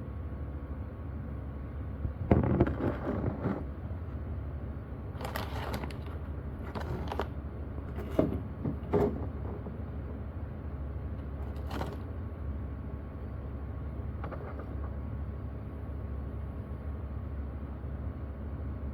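Scattered handling sounds: a few short rustles and light knocks over a steady low hum, the loudest about two seconds in.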